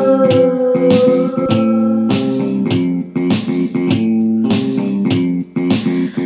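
Background music: a song with held chords and a steady beat of drum hits.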